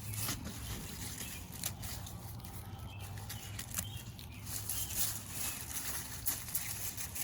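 Crisp lettuce leaves rustling and snapping as the outer leaves are picked off by hand: a scattered string of short snaps and crackles over a low steady hum.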